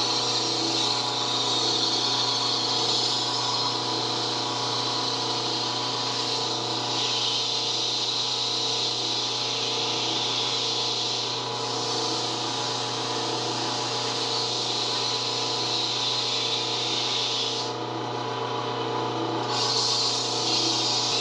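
Cue lathe motor running with a steady hum while sandpaper hisses against the spinning cue. The hiss drops out for about two seconds near the end, then comes back.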